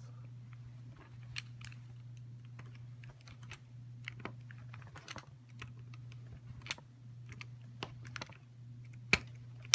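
Irregular small clicks and snaps of a box cutter blade pressed down against a table, cutting through the protruding ends of CAT5 copper wires to trim them flush with an RJ45 connector; one sharper snap about nine seconds in. A steady low hum underneath.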